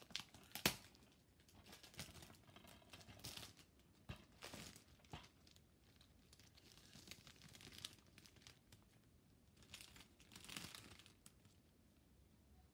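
Clear plastic shrink-wrap being picked at, torn and peeled off a disc case, in soft scattered crinkles and rips, with one sharper click near the start.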